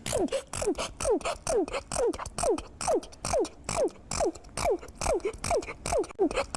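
A girl sneezing over and over in rapid, evenly spaced succession, about two to three sneezes a second, each with a sharp rush of air and a falling pitch.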